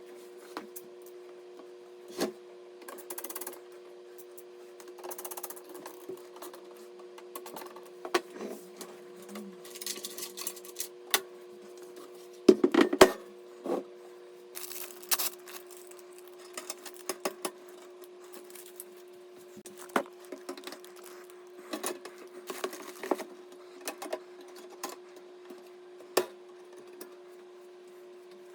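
Computer parts being handled during a PC build: scattered small clicks, taps and light rustles of plastic and metal, with a brief cluster of louder knocks about halfway, over a steady low electrical hum.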